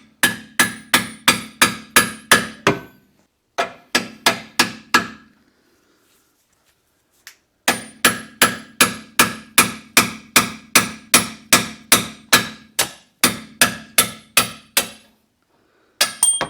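Hammer striking a steel punch to drive out a stuck rear shock absorber's mount, about three ringing metal-on-metal blows a second. The blows come in three runs with short pauses between them, the longest run near the middle.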